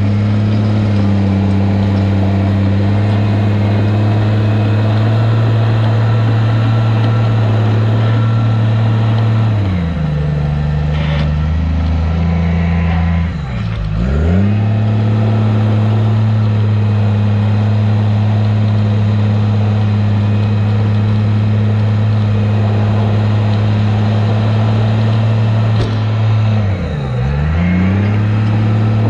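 Bulldozer's diesel engine running at high, steady revs while working gravel. The engine note drops sharply and climbs back about halfway through and again near the end.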